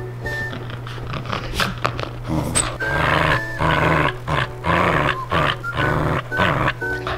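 A corgi growling and grunting in several short rough bursts, over background music.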